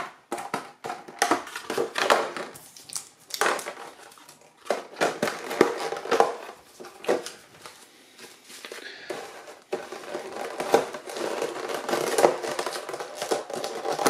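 Plastic and cardboard phone packaging being handled and crinkled: irregular crackles, rustles and small clicks, with a short lull about eight seconds in.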